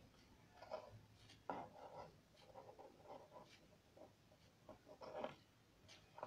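Faint rustling and light scratching of hands twisting together the thin wire leads of a battery connector, in a few short scattered bursts.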